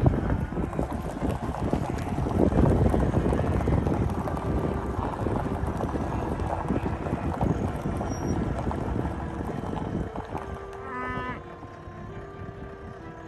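Wind rushing over the microphone with vehicle noise from a slow drive over rough ground. About ten seconds in it drops away and a few steady tones come in.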